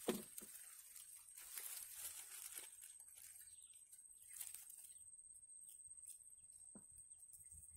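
Near silence: faint rustling close to the microphone in the first few seconds and again about four seconds in, over a steady high-pitched whine, with one soft click near the end.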